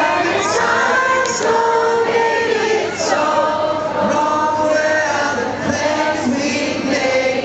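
Many voices singing together in chorus at a live pop concert, like an audience singing along to a song.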